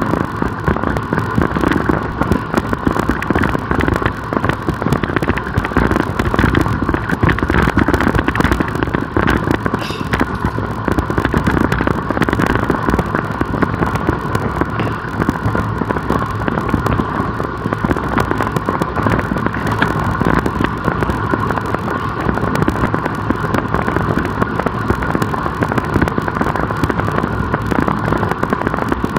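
Steady rush of wind and road noise from a road bicycle moving at speed, with crackling wind buffeting on the microphone.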